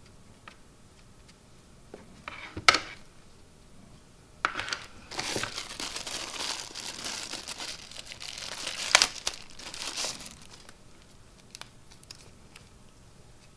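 Crinkly packaging wrap being crumpled and pulled open by hand for about six seconds, after a short rustle and a sharp click; then quieter handling with a few small clicks.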